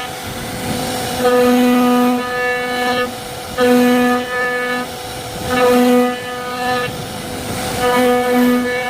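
CNC wood-carving machine at work: a pitched motor whine with many overtones that comes on and drops away in a regular cycle, about four times.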